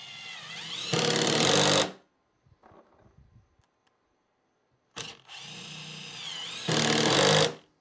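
Hart 20V brushed impact driver drives a wood screw into a wood bench top, twice. Each time the motor whines as the screw spins in, then the hammer mechanism kicks in with louder rapid impacting for about a second as the screw seats, and it stops suddenly. The second drive starts about five seconds in.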